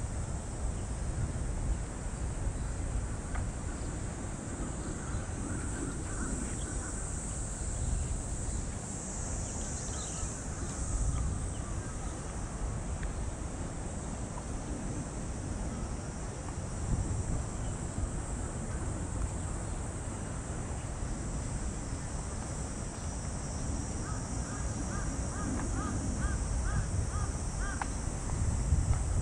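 Cicadas buzzing steadily, with a crow cawing several times in quick succession near the end, over a low rumble of wind on the microphone.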